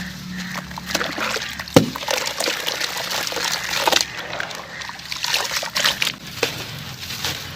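Chunks of sand-cement being crushed and crumbled, a dense irregular gritty crackle with a sharp louder snap about two seconds in.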